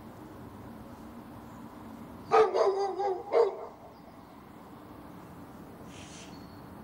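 A dog barking: a short run of barks about two and a half seconds in, with one last bark about a second later.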